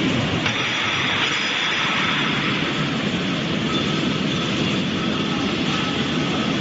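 Air-bubble vegetable washing machine running: a steady rush of water churned by air bubbles, with faint steady tones from the machine.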